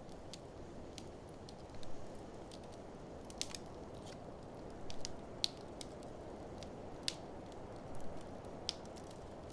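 Wood fire in an open fireplace crackling, with irregular sharp pops and snaps, several loud ones, over a steady low rushing background.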